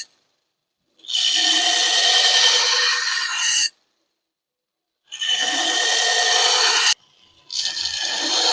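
Power grinder grinding the edges of a steel knife blade cut from a sawmill blade: a rasping grind with a steady whine in it. It comes in stretches of two to three seconds that start and stop abruptly, with dead silence between them.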